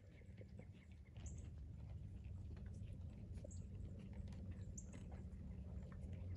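Horses chewing sweet feed: many small crisp crunches over a low steady rumble.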